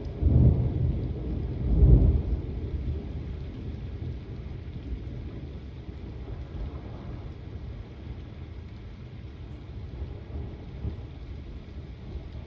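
A thunderclap breaks just as the sound begins, with a second loud peak about two seconds in, then the thunder rumbles on and slowly fades over steady rain.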